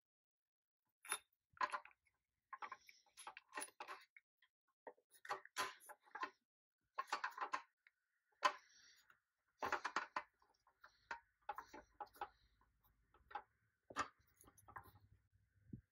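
Fingers working a chrome hubcap onto a toy truck's wheel: irregular small clicks, taps and scrapes of metal on plastic, coming in short clusters with gaps between them.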